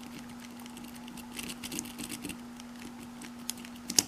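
Lock-picking rake worked in a padlock keyway with a rocking and raking motion: faint, irregular small metallic clicks and scratches, with a sharper, louder click about four seconds in. A steady low hum runs underneath.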